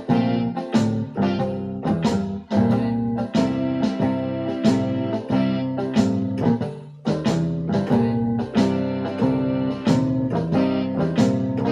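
Electronic keyboard playing blues, with chords struck in a steady rhythm over a repeating bass.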